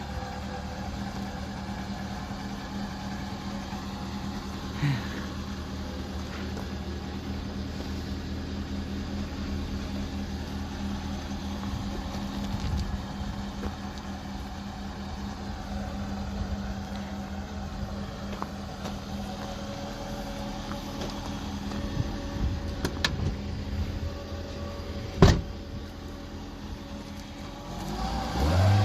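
Car engine running steadily with a low hum, with a sharp click about 25 seconds in and a louder low surge just before the end.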